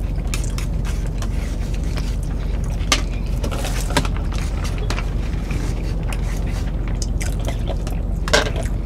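Eating sounds: chewing, with scattered short clicks of forks against plastic takeout trays, over a steady low hum in the car cabin.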